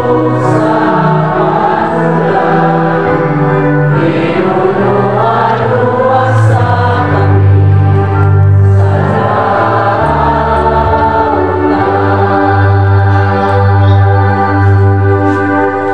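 Choir singing a sung part of the Catholic Mass over an accompaniment of long held low notes. The singing ends right at the close.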